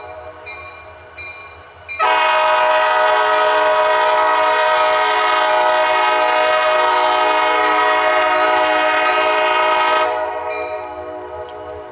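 Diesel freight locomotive's multi-note air horn sounding one long blast of about eight seconds, beginning about two seconds in. Before and after the blast, the chord dies away gradually.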